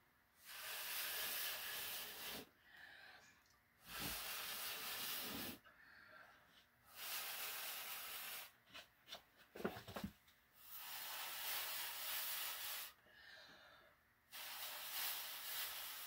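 Hard breaths blown through a clear tube onto wet acrylic paint: five long hissing rushes of air about two seconds each, with quieter breaths drawn in between and a few short quick puffs in the middle.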